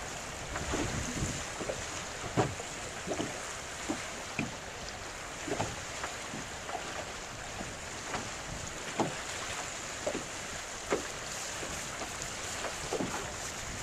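Choppy water slapping against the hull of a small drifting boat, irregular knocks about once a second, over steady wind buffeting the microphone.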